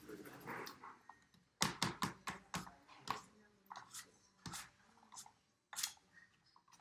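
A hand rubbing and smearing paint across a canvas hung on a wall: an irregular run of quick scrapes and slaps, starting about one and a half seconds in and lasting about four seconds.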